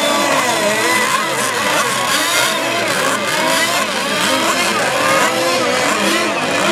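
Several radio-controlled sport hydro racing boats running at speed on the water. Their overlapping engine whines keep rising and falling in pitch as the boats pass and turn.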